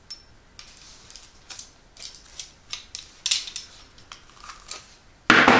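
Small clicks and rustles of a fabric strap with a metal rectangle ring being handled while a hole is made in it for a rivet. A single louder, sharp sound comes near the end.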